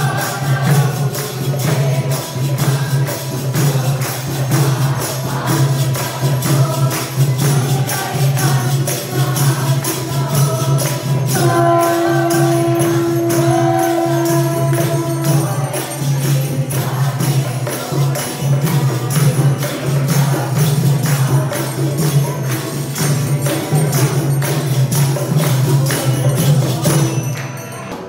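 Group devotional chanting with a brass temple hand bell ringing continuously and jingling percussion. The sound drops away just before the end.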